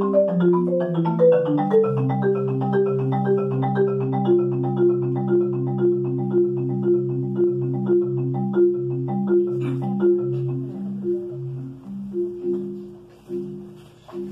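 Marimba played with mallets: a steady pulse of low notes under a repeated higher note, about two or three strokes a second, growing quieter and sparser over the last few seconds.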